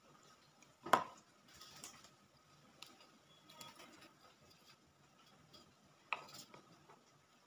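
A spoon knocking against a stainless steel bowl as spoonfuls of paste go in: one sharp knock a bit under a second in, another just after six seconds, and faint ticks between.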